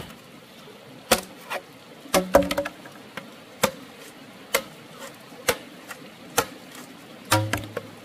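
Repeated sharp strikes of a hand tool, about one a second and unevenly spaced, a few coming in quick runs of two or three, some followed by a short low tone.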